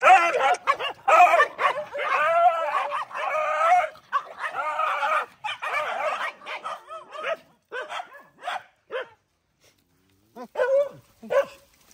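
A pack of dogs fighting: a dense, overlapping run of snarls and barks for about the first six seconds, then shorter single barks and cries, a brief lull a little past nine seconds, and a few more cries near the end.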